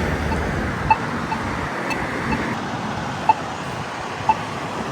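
Polara iNS2 accessible pedestrian signal push button sounding its locator tone during the don't-walk phase: short ticks about once a second, over steady passing road traffic.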